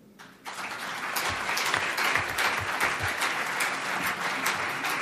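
Audience applause in a hall, breaking out about half a second in and holding at an even level.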